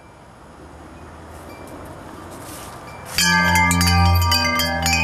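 A faint, even rushing noise with a low hum, slowly growing louder; about three seconds in, music starts suddenly with chiming bell-like notes over low held tones.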